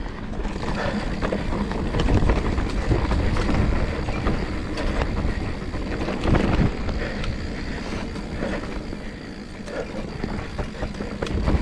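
Mountain bike riding fast down a dirt trail: wind buffeting the microphone over tyre noise on dirt, with frequent clicks and rattles from the bike.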